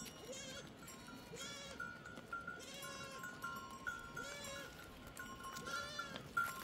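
Small livestock bleating: five quavering calls, each about half a second long, spaced roughly a second and a half apart.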